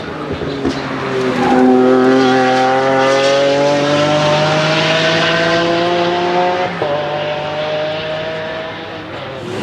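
Lamborghini Centenario's naturally aspirated V12 accelerating hard, its exhaust note climbing steadily in pitch. It snaps through an upshift about two-thirds of the way in, then carries on at a lower pitch and fades as the car pulls away.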